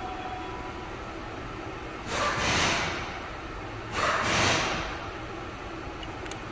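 Two short whooshes of rushing noise, each about a second long, starting sharply and fading, about two seconds apart, over a faint steady background hum.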